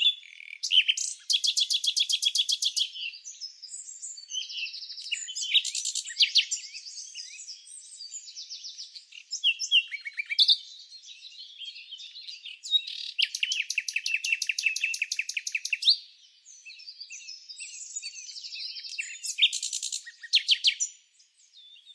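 Small songbirds chirping and singing in a continuous, varied stream of high-pitched notes, broken by several fast trills of rapidly repeated notes that each last one to three seconds.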